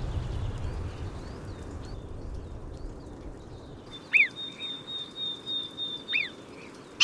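Two short, sharp animal calls about two seconds apart over a steady high-pitched trill, after a low rumble fades out in the first few seconds.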